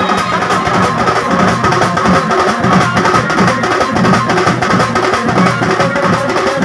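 A street drum band of barrel drums and small hand-held drums beaten with sticks, playing a dense, fast, driving rhythm, with a few steady melody notes held above the drumming.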